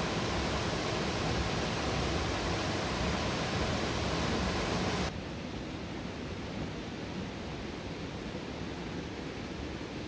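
Steady rush of water falling at Ilıca Waterfall. About halfway through it cuts suddenly to a quieter, duller rush.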